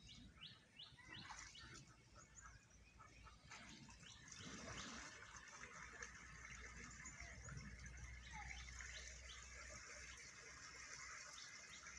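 Faint bird chirps, a quick run of short notes near the start and again near the end, over a low hiss of water being splashed in a shallow stream that starts about four seconds in.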